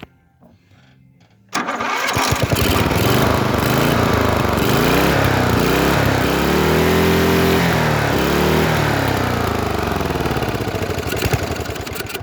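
A pulley-swapped riding lawnmower's 12.5-horsepower engine comes in suddenly about a second and a half in and runs loud. It revs up and back down on its foot-operated gas pedal. Near the end it runs rough and uneven as it runs out of gas.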